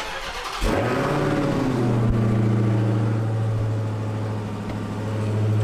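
Supercharged 6.2-litre HEMI V8 of a 2020 Dodge Charger SRT Hellcat Widebody starting up: a brief crank, then the engine catches with a loud flare about half a second in and settles down to a steady idle.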